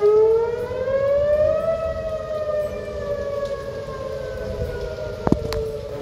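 Outdoor tornado warning siren wailing, its pitch rising for the first couple of seconds and then slowly falling, over a low steady rumble. Two sharp clicks near the end.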